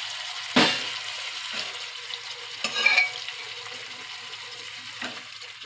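Tomato masala sizzling in a kadai on a gas burner, with a loud knock about half a second in and another near three seconds as boiled black urad dal and rajma are added to the pan.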